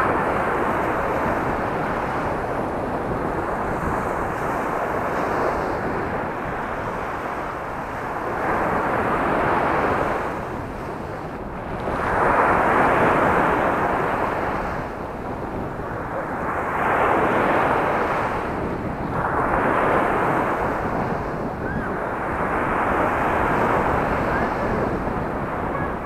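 Sea waves breaking on a pebble beach, the surf swelling and easing every few seconds.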